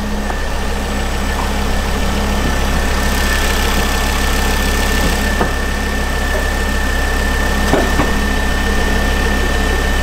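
Ford Focus ST's turbocharged five-cylinder engine idling steadily, with a steady high whine over the rumble and a few faint clicks in the second half.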